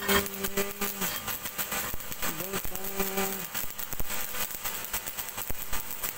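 Electric arc welding on a steel ring: the arc crackles and sputters steadily, with rapid, irregular pops.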